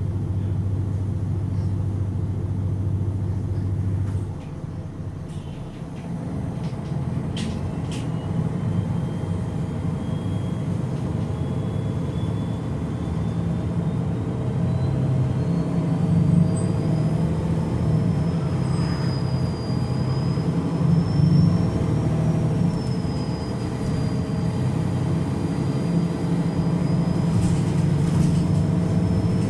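MAN NG313 articulated bus's D2866 turbocharged horizontal six-cylinder diesel heard from inside the passenger cabin: a steady low drone that drops off about four seconds in, then builds up again as the bus gets under way. A high whine rises slowly in pitch over the following seconds, with a few clicks about seven seconds in.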